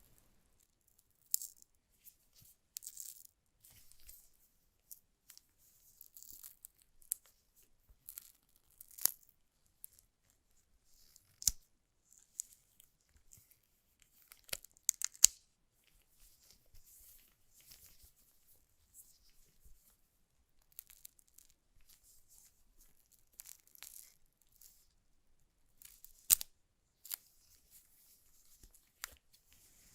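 Smartphone box being unpacked by hand: plastic film and paper packaging tearing and rustling, broken by sharp clicks and taps of cardboard and parts being handled.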